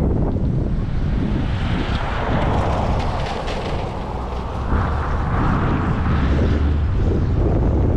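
Wind buffeting the microphone with a steady low rumble, while a rushing noise swells up about a second and a half in and fades away near the end.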